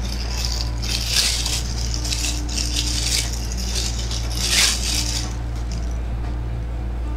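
Thin clear polythene bag crinkling and rustling in the hands in several bursts as a wet tissue paper is wrapped in it, over a steady low electrical hum.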